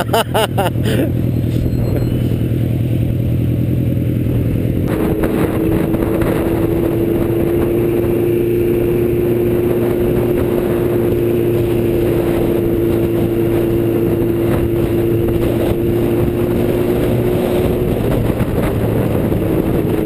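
Motorcycle engine running at low revs, then, about five seconds in, at a steady higher cruising pitch with the bike under way at road speed.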